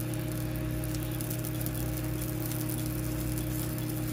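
Egg omelette with mushrooms, spinach and broccoli sizzling in olive oil in a nonstick frying pan, a steady frying hiss with fine crackles, over a steady low hum.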